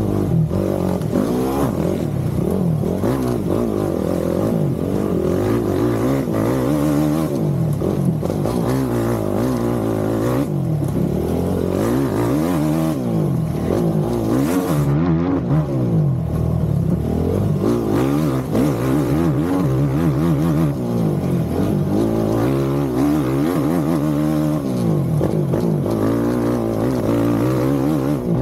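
Off-road vehicle engine revving up and down, its pitch rising and falling again and again without a pause.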